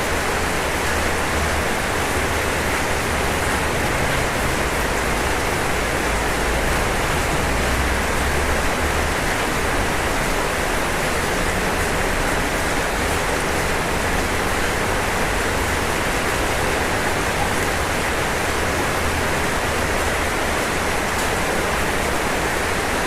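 Steady rain falling on a roof, a constant even hiss of drops.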